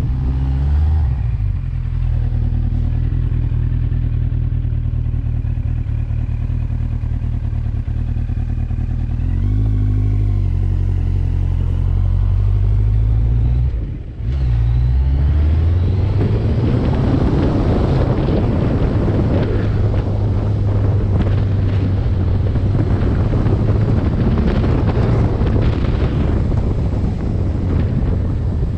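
Motorcycle engine running under way, with a steady low engine note that shifts in pitch about ten seconds in. The sound cuts out briefly around fourteen seconds in, then comes back, and a rush of wind noise builds over it as speed picks up.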